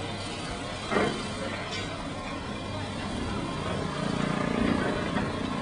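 Construction-site machinery noise: an engine running steadily with a low hum, which gets louder about four seconds in, and a brief knock about a second in.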